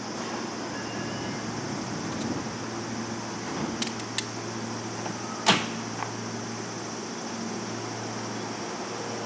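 Seibu 6000-series electric train standing at the platform before departure: a steady low electrical hum under a high hiss, two light clicks near four seconds in, and a loud sharp knock about five and a half seconds in.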